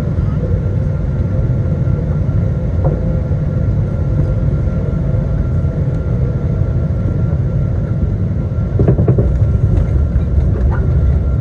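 Steady low rumble inside the cabin of a Boeing 777-200ER rolling on the ground after landing, with a few short rattles and knocks near the end.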